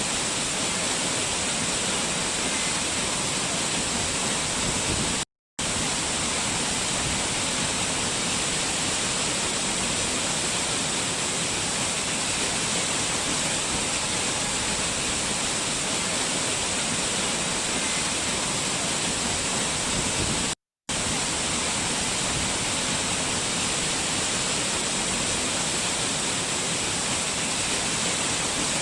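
Steady rushing of a waterfall, an even hiss of falling water with no change in level. It cuts out to silence twice for a fraction of a second, about five seconds in and again about twenty-one seconds in.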